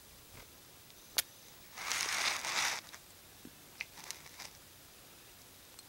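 Parakeet (budgerigar) bathing in a small glass of water: a burst of splashing and wing-fluttering about a second long near the middle, with a sharp click just before it and a few light ticks afterwards.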